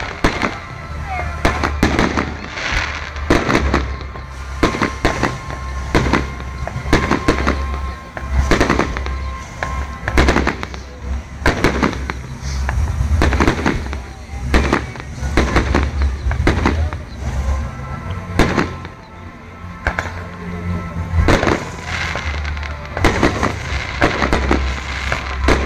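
Aerial fireworks shells launching and bursting: a continuous, irregular run of sharp bangs, about one or two a second, over a steady low rumble.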